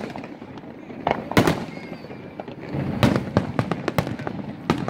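Aerial fireworks finale: loud shell bursts about a second and a half in, at about three seconds and near the end, with a dense crackle of many small reports from about three seconds on.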